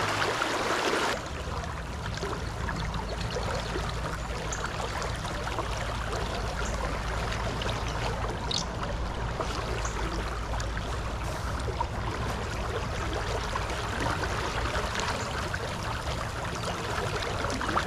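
Tailwater river flowing, a steady rush of moving water.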